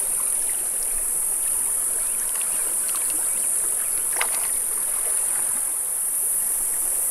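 Small, shallow mountain creek running over rocks and weed beds: a steady rushing hiss of flowing water, with one brief sharp click about four seconds in.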